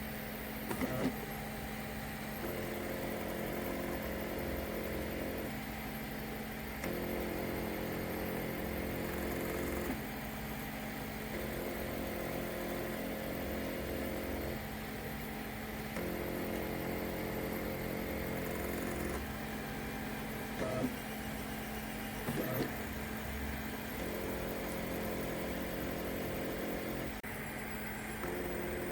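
Stepper motors of a homebrew RepRap 3D printer running, a steady whine whose set of tones changes every second or two as each new move starts, with a few short clicks.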